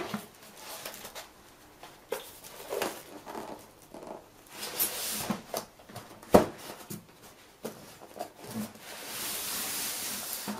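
Cardboard box and polystyrene packing being handled as a computer case is slid out: scraping and rustling with scattered knocks, the loudest a sharp knock about six seconds in.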